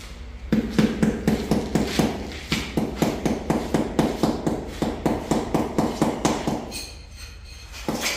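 Steady rhythmic knocking, about four strokes a second, that stops about seven seconds in, followed by one more knock near the end.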